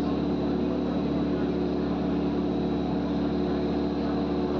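Airplane engine noise: a steady, unchanging drone with a constant hum and a faint high whine.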